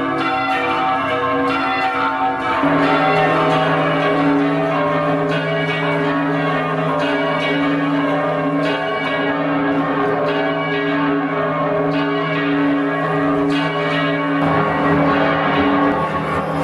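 Several church bells ringing together, struck again and again so that their tones overlap. A deeper bell tone joins a couple of seconds in and drops out near the end.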